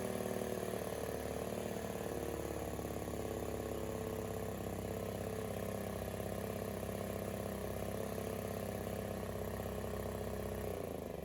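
Ryobi RIG1000 inverter generator's small petrol engine running steadily on choke after a cold pull-start, then cutting out near the end and winding down with a falling whine.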